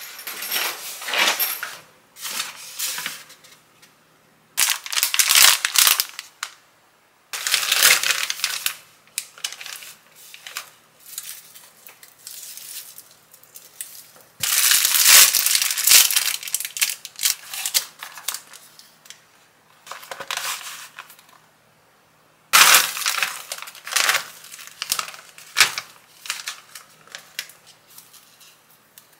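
Plastic grocery packaging rustling and crinkling in several separate bursts, with short quiet gaps between them, as groceries are pulled from a delivery bag and handled.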